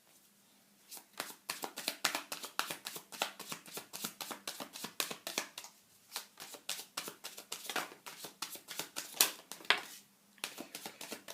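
Tarot cards being shuffled and handled by hand: a fast, dense run of light card clicks and flicks that starts about a second in and pauses briefly near the end.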